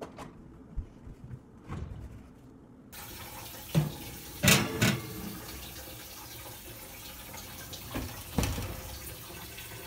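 A metal baking pan is slid onto an oven's wire rack with a few sharp clanks, and the oven door is shut with a couple of knocks near the end, over a steady hiss.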